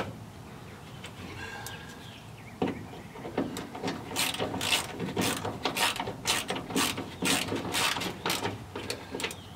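Ratchet wrench clicking in quick repeated strokes, about two to three a second, starting about three seconds in, as the bolts holding the fuel tank down in the trunk floor are tightened.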